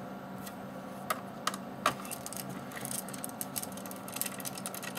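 Small screwdriver working screws into a laptop's plastic base: a few sharp clicks about a second in, then a rapid run of fine ticking and tapping from about three seconds in.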